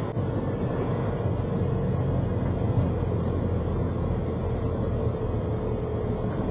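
Semi truck cab at highway speed: a steady drone of diesel engine and road rumble, with a faint steady whine through the middle.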